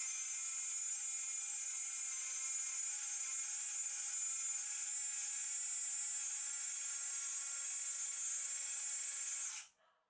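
Small motor and gearbox of a 1/16 scale model crane truck's winch whirring steadily with a high whine as it lowers a suspended model truck, then cutting off suddenly near the end.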